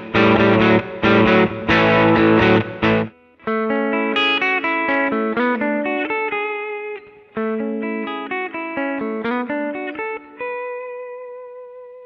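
Gibson Les Paul R9 electric guitar played through a Fractal Audio AX8 amp modeller: a heavily distorted, chopped rhythm riff for about three seconds, then a lighter melodic lead line of single notes that ends on one long held note with vibrato, slowly fading out.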